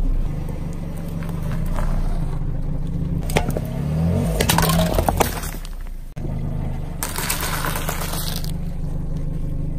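A car creeping forward with its engine running low and steady while its tyre crushes things. Plastic cups and aluminium soda cans crack and crunch in a cluster of sharp snaps about three to five seconds in. After a cut there is a burst of hissing and squashing as the tyre rolls over raw eggs.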